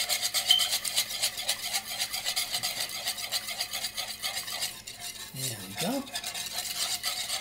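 Wire whisk beating a thin liquid dressing in a ceramic bowl: rapid, regular strokes of wire swishing through the liquid and ticking against the bowl, with a brief pause about five seconds in.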